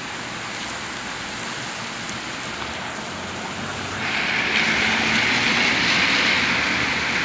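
Heavy rain falling steadily, swelling louder about four seconds in as a gust drives it harder.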